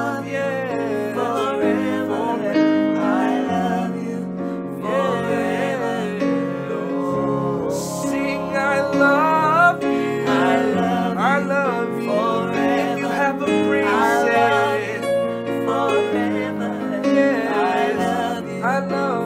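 A woman and two men singing a Christmas song together over an instrumental accompaniment.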